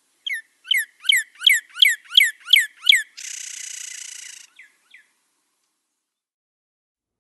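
Northern cardinal singing: a run of eight clear downslurred whistles, a little under three a second, followed by a rapid buzzy trill lasting about a second and two faint slurred notes.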